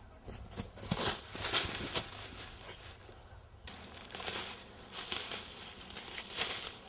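Footsteps crunching through dry leaves and undergrowth: irregular crackling rustles, a couple of steps a second, with a sudden change in the sound a little past halfway.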